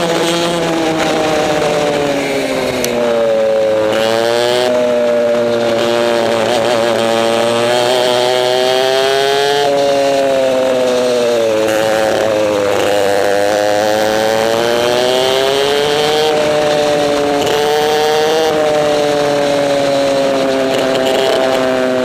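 Onboard sound of a racing kart's two-stroke engine at full race pace, its pitch falling as revs drop into corners and climbing again on the straights, several times over.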